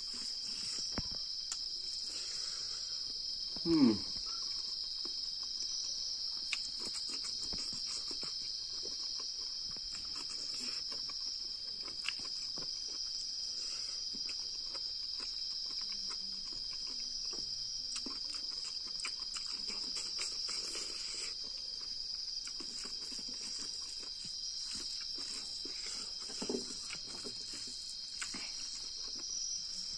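Night insects chirring in a steady high-pitched drone, with faint small clicks of hand-eating over it. About four seconds in, a short, loud falling sound stands out, and a softer one comes near the end.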